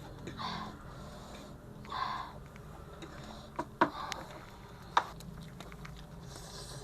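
A person breathing in sharply through the nose or mouth three times, with a few sharp clicks between, while eating spicy food; the breaths fit a reaction to chili heat.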